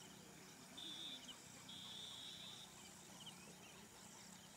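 Faint outdoor ambience with high-pitched animal calls: a short steady buzz about a second in, then a longer one lasting about a second, with a few brief chirping trills.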